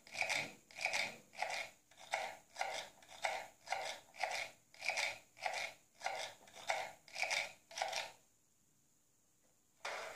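Dining-car sound effect from a Märklin HO restaurant car's sound module: a regular run of rasping strokes, about two a second, like a knife sawing or scraping. The strokes stop about eight seconds in, and a short noise follows near the end.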